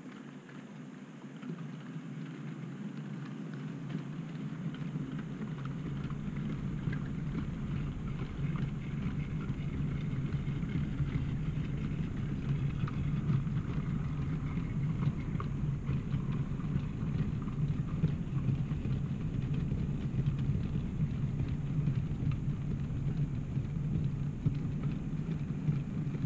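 OO gauge model train, a Black 5 locomotive with a train of vans, running along the track: a steady rumble with fine rapid clicking from wheels on rail, growing louder over the first several seconds and then holding steady.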